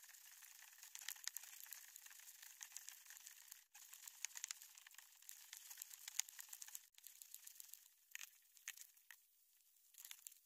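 Faint, dense high crackling and ticking from kayak paddling and water played back at sixteen times normal speed, which pushes the splashes up into a thin crackle. It drops out briefly twice.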